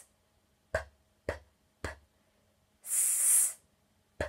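A woman voicing isolated phonics sounds: three short, sharp "p" puffs about half a second apart, then a hissing "sss" about three seconds in, then another "p" near the end. She is contrasting the /p/ of Pinky with the /s/ of Sissy.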